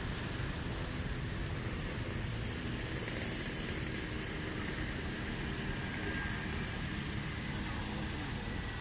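Steady hiss of water splashing from a small fountain jet into its pool, over a low rumble of street traffic.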